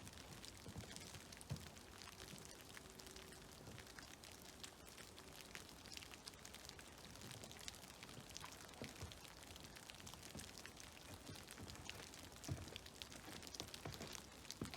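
Snowmelt dripping from trees: faint, irregular drips and ticks scattered over a soft steady rush of creek water.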